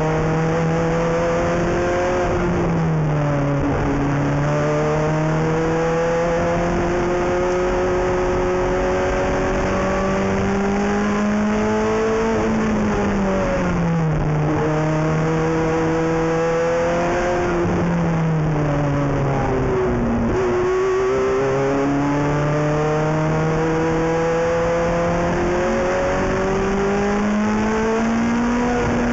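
Ferrari F430 GT race car's V8 engine running hard at lapping speed. The revs climb slowly over several seconds, then fall sharply about three seconds in, near the middle and about two-thirds through before climbing again.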